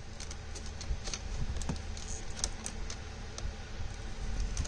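Scattered light plastic clicks and rattles from a Peugeot 207 dashboard air vent being worked loose from its plastic retaining pins, with a low steady hum underneath.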